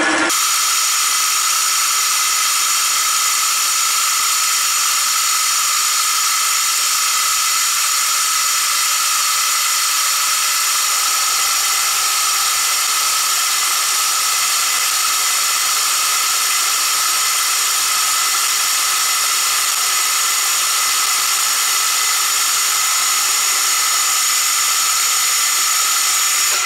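A milling machine cutting metal with a freshly resharpened end mill during its test cut, making a steady, loud cutting hiss with a high whine. It runs evenly, a sign that the reground cutter is cutting well.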